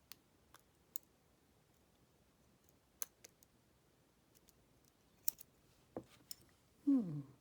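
Lock pick clicking and ticking inside a laminated brass padlock's keyway: sparse, irregular sharp clicks as the pick works the pins. Near the end a short falling hum from a person's voice.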